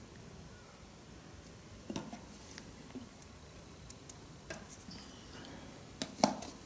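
A few light clicks and knocks of a one-handed bar clamp being set and tightened on a small steel plate at the edge of a wooden bench, with a sharper knock near the end.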